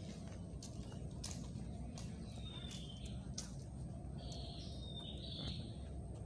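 Outdoor ambience: a steady low background noise, with a bird calling in short high notes, about two and a half seconds in and again near five seconds, and a few light clicks.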